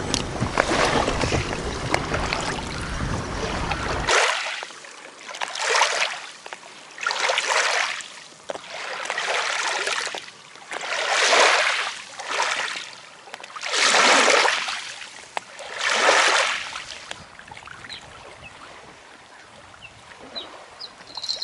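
Water washing and lapping in a run of swells, each rising and falling over about a second, one every one and a half to two seconds. Before that comes a dense, steady rushing noise that cuts off suddenly about four seconds in.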